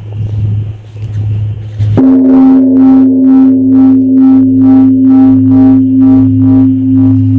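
Korean bronze temple bell (beomjong) struck once about two seconds in, over the low hum of the previous stroke still dying away. It rings on loudly with a deep steady tone and a pulsing shimmer of higher tones, about two beats a second.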